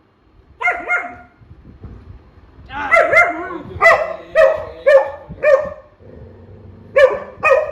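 Pet dogs barking at each other in a play fight: short, sharp barks and yips in bunches, a pair about a second in, a run of six from about three seconds in, and two more near the end.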